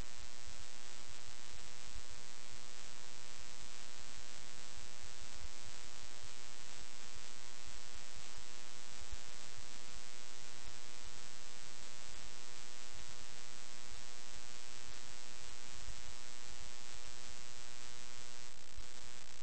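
Steady electrical mains hum: a buzz made of many evenly spaced tones over a layer of hiss, unchanging throughout.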